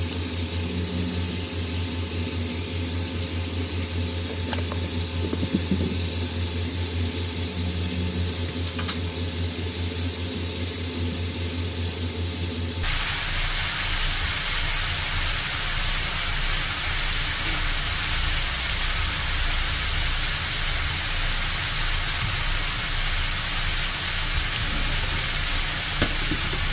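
Ground beef frying in a pan, a steady sizzling hiss. About halfway through, the hiss abruptly grows brighter and a low hum underneath it drops away.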